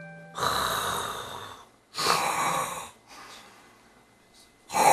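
An elderly man snoring loudly in his sleep: three harsh, breathy snores, the first the longest and the last starting near the end.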